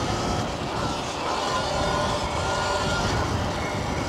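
Riding noise from a moving electric dirt bike: a steady rush of wind on the microphone and road rumble, with a faint thin whine from about a second in to about three seconds in.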